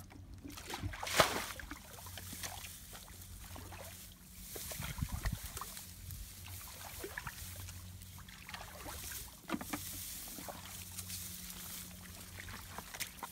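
Muddy water splashing and sloshing as a shallow paddy pool is bailed out by bucket, with a few sharp knocks or splashes, the loudest about a second in. A low steady hum runs underneath.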